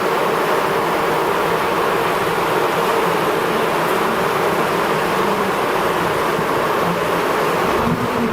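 Loud, steady buzzing of a mass of honeybees crowded on the front of a beehive. This is typical of bees fanning air into a hot hive to cool it.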